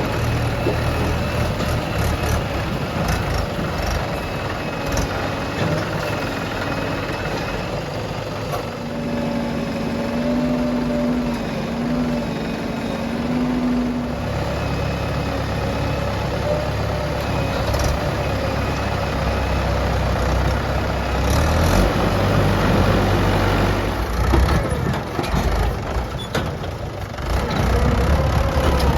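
Diesel engines of a backhoe loader and tractors running at work, steady and loud. A steady hum comes in for a few seconds around the middle, then the low engine sound grows heavier.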